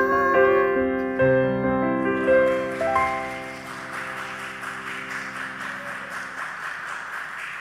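A Roland electronic keyboard plays the song's closing run of notes, climbing and then holding a final chord that dies away about six seconds in, just after the young singer's last note ends. From about two and a half seconds in, audience applause rises over it and carries on steadily.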